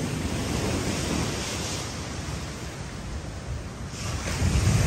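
Surf from a rough sea washing up the sand: a steady rush that swells twice, with wind buffeting the microphone.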